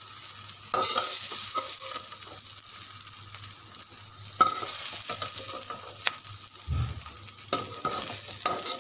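Hot oil sizzling in a kadhai while a metal slotted spoon scrapes and clicks against the pan, scooping out lightly fried onion, tomato and garlic.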